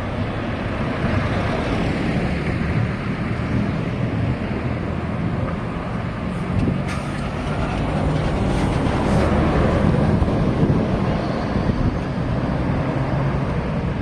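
Road traffic with heavy vehicle engines and tyre noise, swelling a little about eight to eleven seconds in as a vehicle passes; a few short clicks around the middle.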